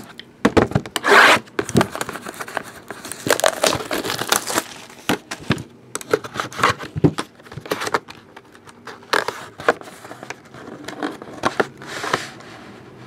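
8x10 photographs and their packaging being handled and laid down: irregular crinkling, tearing and scraping of paper and plastic, with a few light knocks.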